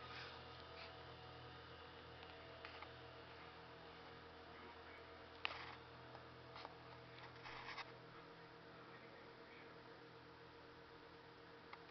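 Near silence: a steady low hum with a few faint rustles, and a sharper click about five and a half seconds in.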